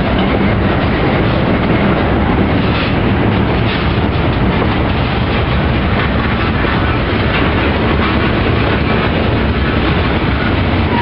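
Freight train of centerbeam flatcars loaded with lumber rolling past close by, its steel wheels running on the rails in a loud, steady rumble.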